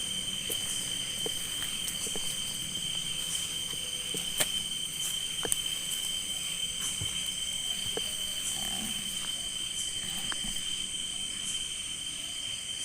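Night insect chorus, a steady high-pitched chirring, with a few sharp clicks or ticks, the loudest about four and a half and five and a half seconds in.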